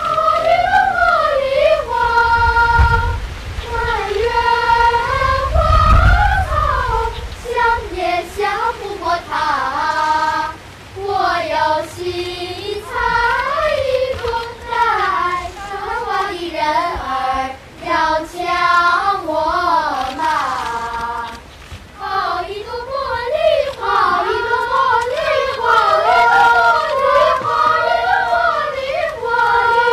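A group of children singing a melody in high voices, with more than one line sounding at once in places and short breaths between phrases.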